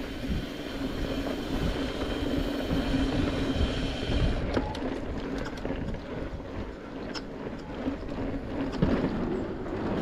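Mountain bike rolling along a dirt trail: steady tyre rumble and wind on the microphone. From about halfway there are scattered sharp clicks and rattles from the bike.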